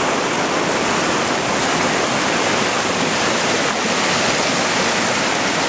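Steady rushing of a fast-flowing stream, an even, unbroken wash of water noise.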